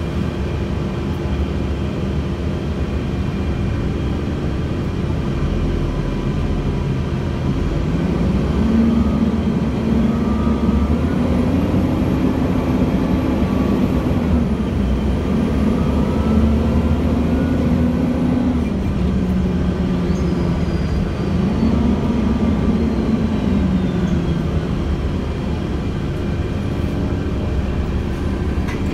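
Cummins ISL diesel engine and Voith automatic transmission of a 2006 Gillig BRT transit bus, heard from on board over steady running noise. From about a third of the way in, the engine note climbs as the bus accelerates and steps through gear changes with a faint high whine rising alongside. It then drops back as the bus eases off.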